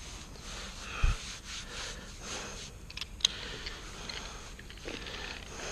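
Hands rubbing and brushing over commercial carpet pile along a seam, a steady rustling, with a dull thump about a second in and a sharp click a little after three seconds.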